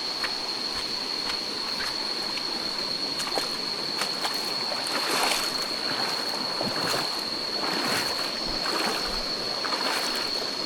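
Footsteps splashing through a shallow stream crossing, with running water, over a steady high-pitched insect drone.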